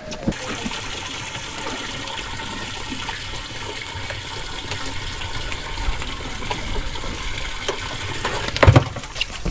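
Water running steadily into a boat's livewell as a steady rush, with one heavy knock about a second before the end.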